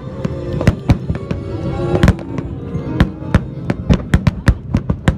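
Aerial fireworks bursting in a rapid barrage of sharp bangs, coming faster and closer together in the second half, with music playing underneath.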